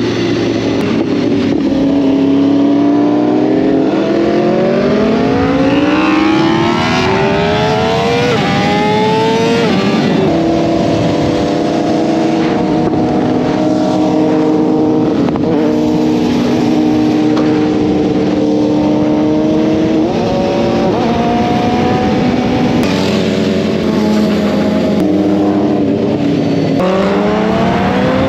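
BMW S1000RR inline-four engine pulling hard under acceleration, its pitch climbing for several seconds and then dropping at an upshift about ten seconds in. It then holds a fairly steady pitch with small changes and climbs again near the end, with wind rush underneath.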